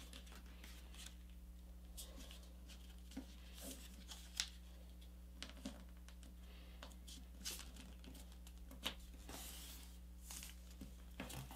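Faint rustling and crinkling of a sheet of A4 paper being folded and creased by hand, with scattered soft ticks and a couple of longer swishes near the end as the fold is pressed flat.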